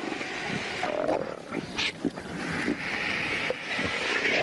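Jackals and vultures squabbling over a giraffe carcass: a string of short calls and scuffling noises over a steady hiss.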